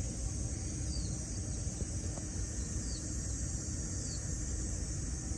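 Park ambience: a steady high-pitched insect drone, with a bird chirping briefly three times over a low rumble.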